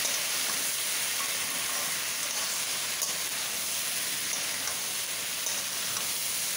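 Green banana and potato pieces sizzling steadily in hot oil in a pan, with a few faint pops, as they fry until reddish before the spices go in.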